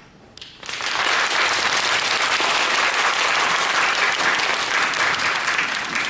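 Audience applauding, starting suddenly about half a second in and continuing steadily.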